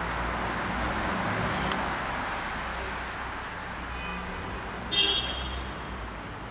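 Passing road traffic: a steady rushing hiss with a low rumble, swelling over the first couple of seconds and then easing off. About five seconds in, a brief sharp high-pitched sound cuts through.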